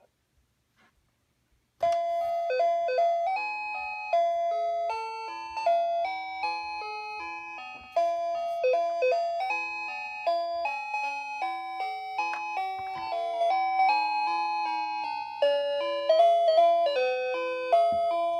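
Fisher-Price Loving Family toy minivan playing its electronic tune, a jingly melody of clean, stepped single notes that starts suddenly about two seconds in and keeps going.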